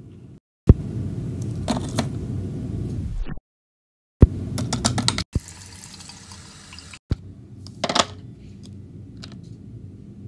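Water running from a tap into an electric kettle, in short clips that cut off abruptly, with a few clicks and knocks of the kettle being handled.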